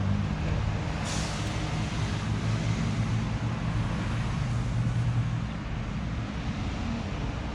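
A nearby motor vehicle's engine running with a steady low drone, with a short hiss about a second in; the drone eases off after about five seconds.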